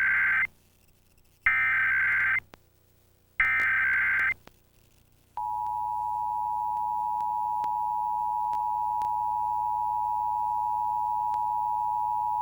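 Emergency Alert System broadcast signal opening a national EAS test. It starts with three short bursts of harsh, buzzy SAME digital header data, about a second each, with brief pauses between. About five seconds in, the steady two-tone EAS attention signal begins.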